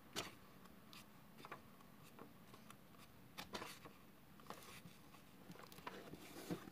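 Pages of a book being turned by hand: faint paper rustles and flicks, several over a few seconds. A louder one near the end comes as the book is shut.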